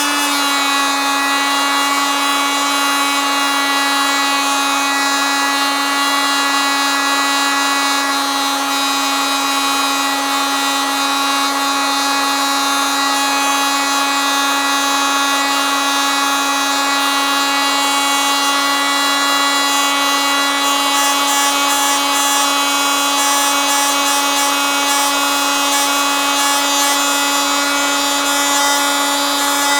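Oscillating multitool running continuously: a steady buzz that holds one pitch and level throughout.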